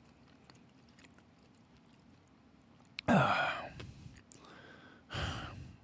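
A man's wordless vocal sounds: about three seconds in, a short groan that falls in pitch, then two breathy exhales, the second one louder near the end.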